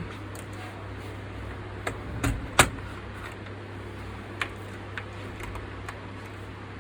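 A few separate sharp clicks and knocks from objects being handled, the loudest about two and a half seconds in, over a steady low hum.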